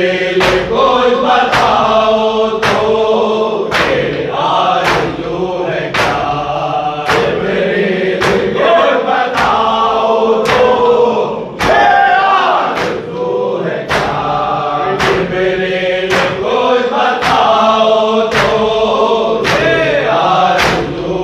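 Group of men chanting a Shia noha (mourning lament) together, with a steady beat of sharp slaps from matam (rhythmic chest-beating) running through it.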